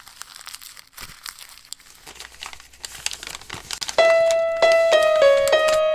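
Crumpled paper crinkling as it is handled and opened out. About four seconds in, a piano begins playing single notes in a slow melody.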